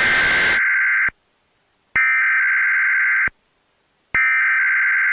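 Emergency Alert System SAME header: three bursts of warbling digital data tones, each a little over a second long with short gaps between, which mark the start of an emergency alert. A brief burst of static hiss overlaps the start of the first burst.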